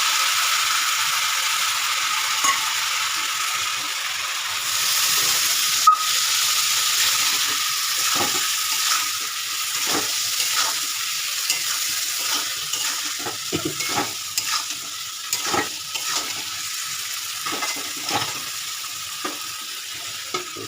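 Ground spice paste of ginger and green chilli sizzling in hot oil with potatoes and papaya in a pan, being sautéed down, with a spatula stirring and scraping through it every second or so from midway on. The sizzle slowly fades as the paste cooks down.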